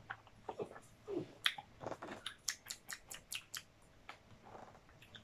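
Quiet, close-up mouth sounds of sipping a drink from a can and tasting it: small lip smacks, sips and swallows, heard as a string of short, irregular clicks.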